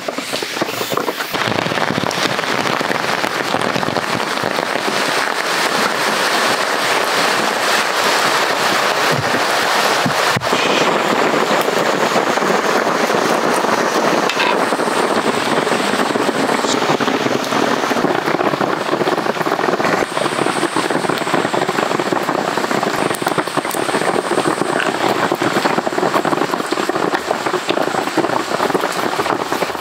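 Heavy rain falling steadily on a camp tarp: a dense, even crackle of countless drops.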